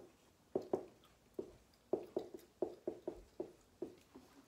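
About a dozen light, sharp taps in an irregular run, a few coming in quick clusters.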